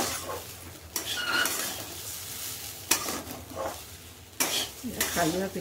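Metal spatula scraping and tossing rice in a steel kadai, a sharp scrape every second or so, over the steady sizzle of oil frying in the pan beside it.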